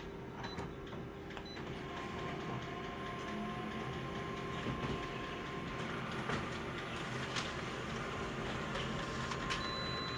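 Toner photocopier running a copy: a steady mechanical whirr with a faint high whine that starts about two seconds in and stops near the end.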